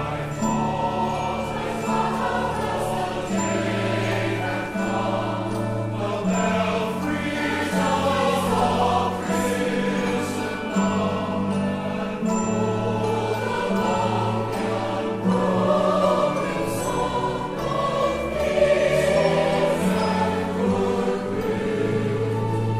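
Four-part mixed choir singing "I thought how as the day had come, the belfries of all Christendom had roll'd along th'unbroken song of peace on earth, good will to men" at a moderate, joyful tempo. An orchestra plays accented chords underneath.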